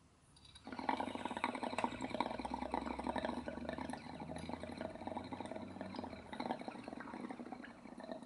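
Water bubbling in a small glass dab rig as a hit is drawn through it, starting just under a second in and going on steadily.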